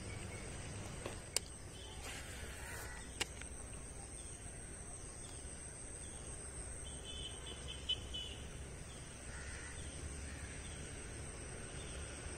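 Faint outdoor ambience: a steady high-pitched insect drone, a brief bird call about seven seconds in, and two sharp clicks in the first few seconds.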